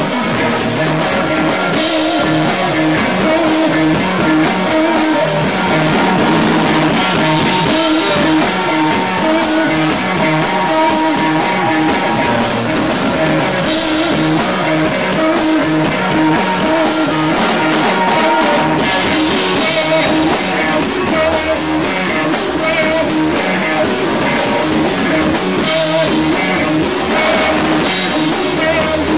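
A loud live rock band playing an instrumental passage: distorted electric guitars and a drum kit with crashing cymbals.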